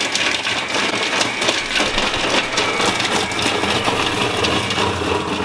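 Multo cooking robot's blades spinning at high speed in its lidded steel mixing bowl, chopping garlic, ginger, jalapeño and green onion. A steady motor noise with many small knocks from the pieces being thrown about.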